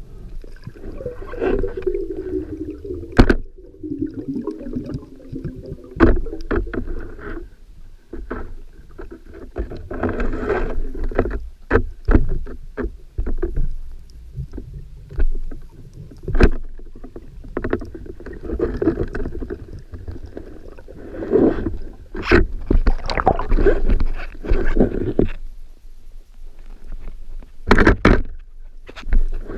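Water sloshing and bubbling around a spearfisher's camera, with many sharp knocks and clicks scattered through it.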